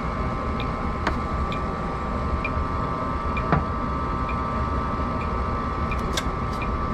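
Gas furnace running: a steady low rumble from the burner and blower, with a steady high hum over it and faint ticks about once a second.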